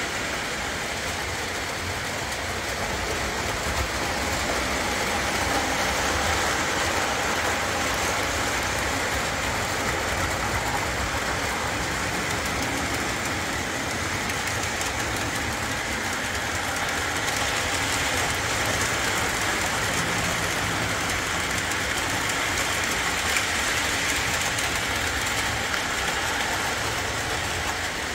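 Lionel O-27 Alco diesel model train running on its track: a steady rumble and rattle of the motor and wheels that grows somewhat louder twice, about four seconds in and again from about seventeen seconds.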